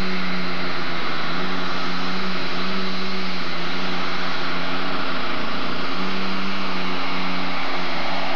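Super stock pulling tractor's engine at full throttle, pulling the weight sled down the track. A loud, steady, high drone whose pitch wavers and dips briefly a little past the middle.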